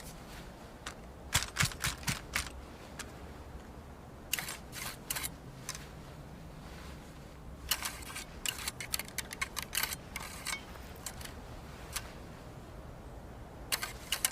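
Sharp mechanical clicks in four short clusters a few seconds apart, from handling a Whitworth rifle: metal parts of the action being worked, not a shot.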